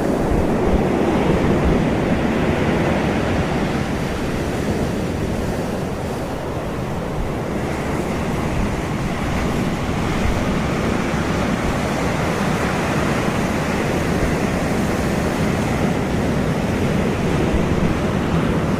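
Rough ocean surf stirred up after a hurricane: a steady rush of breaking waves, with wind buffeting the microphone.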